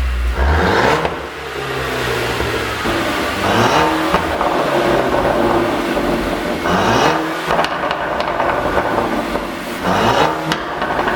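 Mercedes-Benz GLC350e's turbocharged four-cylinder engine revved up about four times, each rev followed by a spell of crackling pops and bangs from the exhaust as the throttle closes: the overrun pops of a tune set up for that sound.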